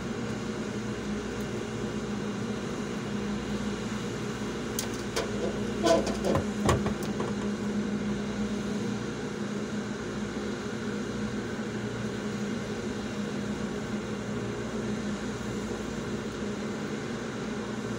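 Steady mechanical hum with a low droning pitch, broken about five to seven seconds in by a short cluster of clicks and knocks.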